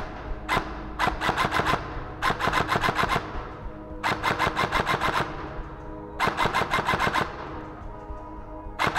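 Airsoft electric rifle firing short full-auto bursts at about ten shots a second: a single shot, then four bursts each lasting about a second, and another burst near the end, with background music underneath.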